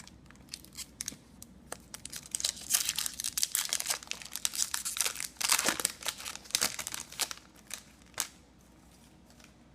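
Trading-card pack wrapper being torn open and crinkled: a dense crackle of tearing and rustling for several seconds that dies away near the end.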